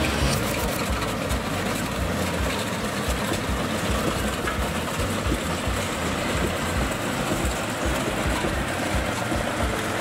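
Yanmar rice combine harvester running steadily while harvesting, its engine noise mixed with the whir and rattle of its belt-driven cutting and threshing machinery.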